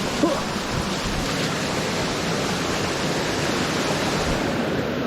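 Small waterfall on a creek: a steady, even rush of falling water.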